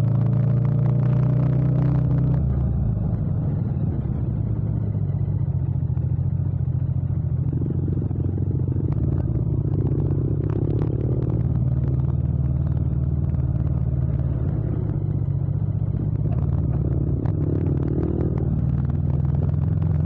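Yamaha MT-07's 689 cc parallel-twin engine running at low, steady revs while the bike rolls slowly in traffic, heard from the rider's position with no wind noise.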